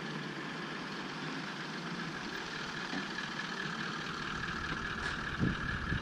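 4WD vehicles rolling slowly past with their engines running, a steady rumble under a steady high whine. A sharp knock comes about five and a half seconds in.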